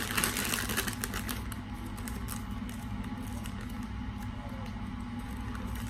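Clear plastic bags crinkling and rustling as they are handled, busiest in the first second or so and then thinning to occasional light crackles over a steady low hum.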